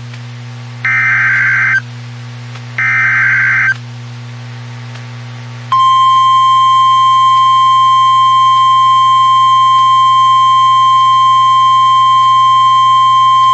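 EAS/SAME digital header bursts, a warbling two-tone data screech in two bursts of about a second each, then NOAA Weather Radio's steady 1050 Hz warning alarm tone from about six seconds in. Together they mark the start of a new warning broadcast.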